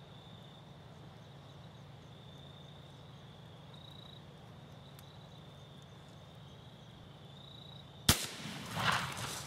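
A single muzzleloader rifle shot, fired at a doe: one sharp crack about eight seconds in, then a rolling echo for about a second and a half before the sound cuts off. Before it, a faint steady background of evening insects.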